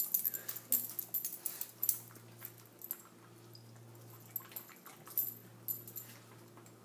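Dog handling and mouthing treats: a quick run of small clicks and ticks over the first couple of seconds, then a few scattered ones, over a faint steady low hum.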